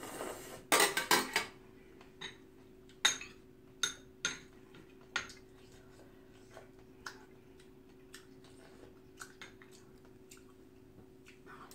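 Metal spoon and chopsticks clinking against a stainless steel soup bowl while eating: a quick run of loud clinks about a second in, then single clinks every second or so. A faint low hum runs underneath.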